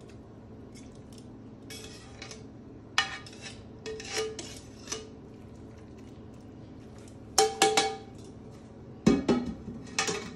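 Metal tongs clinking and scraping against a nonstick skillet and a serving bowl as pasta is served out of the pan, in scattered sharp clinks. The loudest come about seven and a half seconds in, followed by a heavier clunk about nine seconds in.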